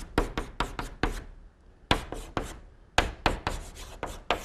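Chalk writing on a blackboard: quick scratching and tapping strokes in three runs, with short pauses about a second and a half in and about two and a half seconds in.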